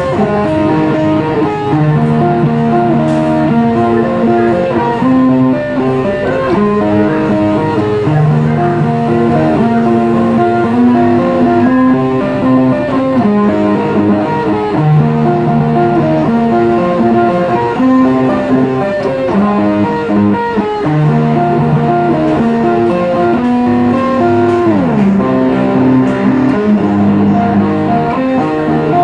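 Background music led by electric guitar, steady throughout.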